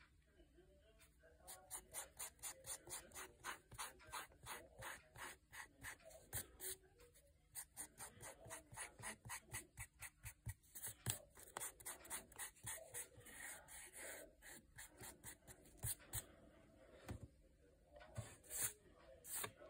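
Pencil-top eraser rubbing back and forth on notebook paper in a fast series of short strokes, faint and scratchy, dying away near the end.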